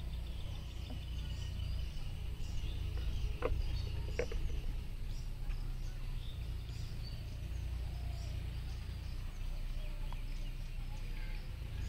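Outdoor pond-side ambience: a steady low rumble with faint bird chirps here and there, and two short sharp sounds about three and a half and four seconds in.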